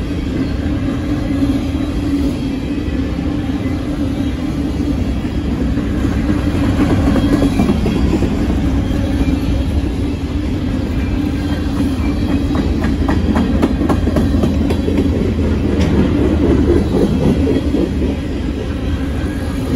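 Freight train cars rolling past close by: a steady rumble of steel wheels on rail under a constant hum, with a run of clickety-clack from the wheels crossing rail joints in the second half.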